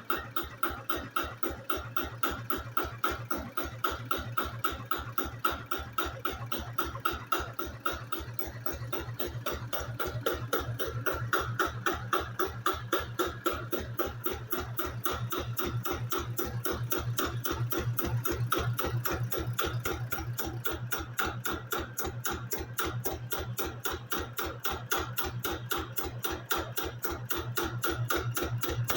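Kaelble F125E engine running with a slow, regular beat, about four strokes a second.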